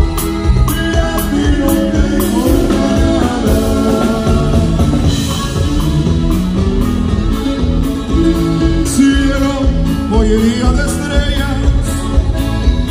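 Live band music played loud through the PA, with electric bass and a steady drum beat under a melody line.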